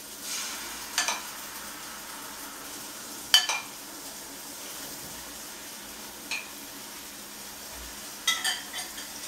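Bread slices frying in a pan on the stove, a steady sizzle, with a few sharp clinks of utensils and dishes at the pan: about a second in, at three and a half seconds, and a small cluster near the end.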